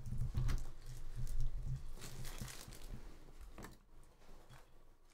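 Light handling noises of cardboard trading-card boxes and their wrapping on a table: faint rustles and small clicks, with a low rumble that fades after about two seconds.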